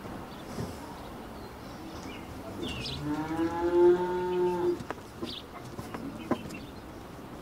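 A single drawn-out animal call at a steady pitch, about three seconds in and lasting nearly two seconds, followed by a few light clicks as raw beef strips are laid on a metal mesh drying rack.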